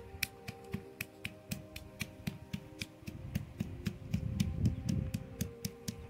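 A round hand-held stone pounding and crushing garlic cloves on a flat stone grinding slab, giving dull low thuds that grow heavier about four seconds in. Under it runs background music with a steady ticking beat of about four ticks a second and held tones.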